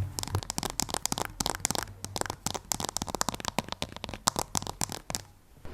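Fingers scratching and tapping at plant leaves close to the microphone for ASMR: a dense, rapid crackling of small crisp clicks that stops about five seconds in.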